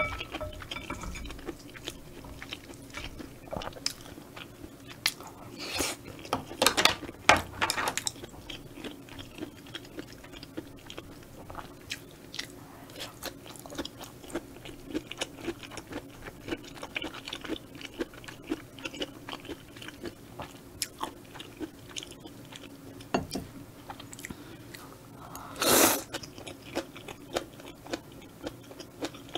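Close-miked chewing and eating of spicy stir-fried squid and udon noodles, with many small sharp clicks and a short, louder burst of noise near the end.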